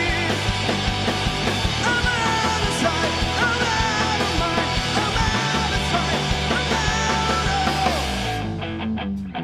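Live punk-rock band playing: distorted electric guitars, bass and drums with a singer. About eight seconds in, the drums and voice drop out and the guitar strums on alone over the bass.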